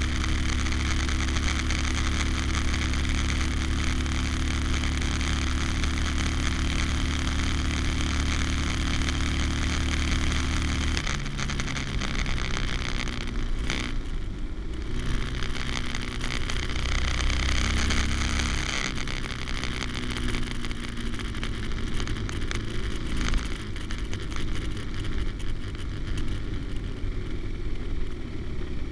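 Harley-Davidson Sportster's V-twin engine running on the road at cruising speed, with a steady rush of wind and road noise over it. The engine note drops and changes about eleven seconds in, and shifts again a few seconds later.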